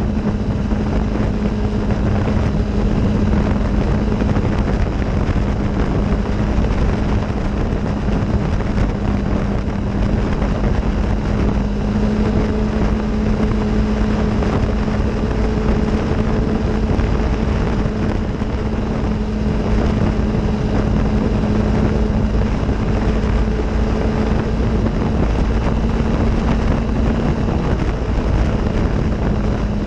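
Off-road vehicle engine running at a steady cruising speed, its pitch holding nearly level, over a constant rush of wind on the microphone and rumble from the dirt trail.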